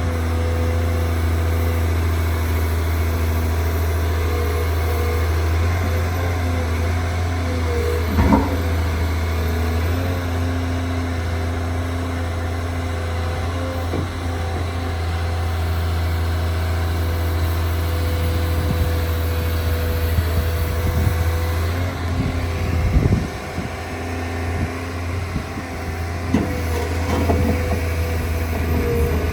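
Volvo EW210D wheeled excavator's diesel engine running steadily, with a low hum and a steady higher tone. A sharp knock comes about eight seconds in, and a few more knocks and clunks come around 23 seconds in.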